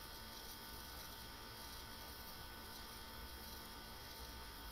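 Faint steady hum with a light hiss underneath, unchanging throughout.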